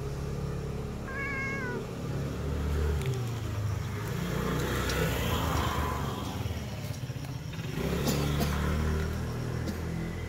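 Cat giving one short meow about a second in, over a low steady rumble.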